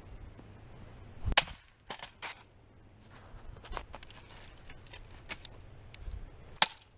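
A tomahawk chopping into a disk drive's sheet-metal casing on a wooden stump: one sharp strike about a second and a half in, then a few lighter knocks and another sharp click near the end.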